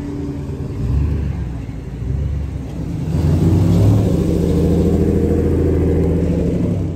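Lowered pickup trucks driving slowly past at close range. A Ford F-150 Lightning's engine goes by first. Then a Ram 1500's engine and exhaust swell into a steady deep rumble from about three seconds in, easing off just before the end.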